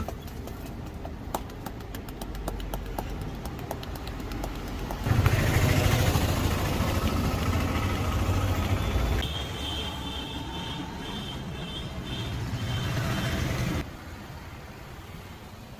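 Street traffic noise with vehicle engines running. A run of sharp clicks sounds in the first five seconds. The sound then jumps louder, with a strong low rumble, and later a repeated high beeping joins in. Each of these changes is abrupt, about five, nine and fourteen seconds in.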